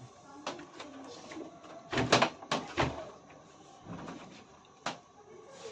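A few sharp knocks and clunks from parts being handled during the washing machine drum repair, the loudest a quick cluster about two seconds in and single knocks near three, four and five seconds.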